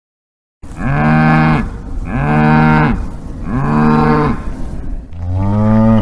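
Cow mooing four times in close succession, each moo about a second long, the last one starting lower in pitch.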